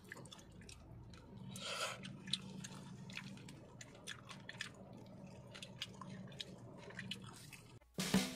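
Quiet eating sounds: a plastic fork clicking and scraping in a plastic tub of noodles, with chewing, over a steady low hum. A louder sound cuts in suddenly just before the end.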